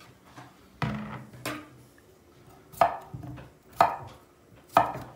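A chef's knife cutting a raw potato into wedges on a wooden chopping board, the blade knocking on the board about once a second.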